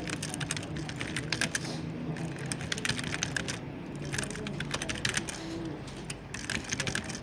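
Computer keyboard being typed on: quick runs of key clicks broken by short pauses.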